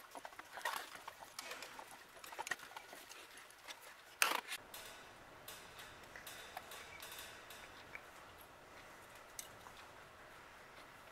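Faint clicks and taps of a screwdriver and small metal carburetor parts being handled on a metal workbench, with one sharper clack about four seconds in. It grows quieter after that, with only the odd tick.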